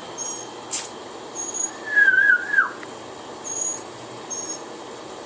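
Northern mockingbirds calling: short high chirps several times, with a louder wavering whistled note about two seconds in that drops in pitch at its end.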